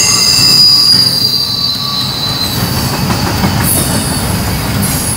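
Double-stack intermodal freight train rolling past, its steel wheels squealing on the curve in several high, thin tones that drift and shift in pitch over the low rumble of the cars. Higher squeals join about three and a half and five seconds in.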